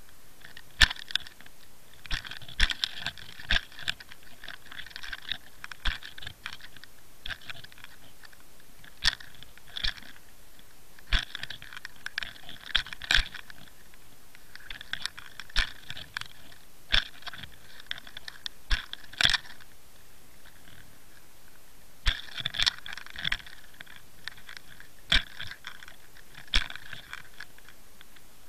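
Sporadic sharp clicks and short spells of crackling, picked up underwater by a submerged camera beside a fishing rig.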